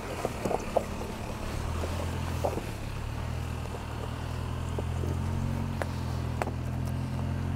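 Toyota Land Cruiser's four-cylinder turbo engine pulling steadily at low revs as the SUV crawls over loose rocks in second gear, picking up a little in the second half. A few sharp clicks and knocks of stones come through over the engine.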